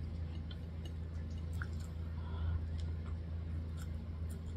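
Close mouth sounds of someone chewing buttered corn on the cob: scattered faint, wet clicks and smacks over a steady low hum.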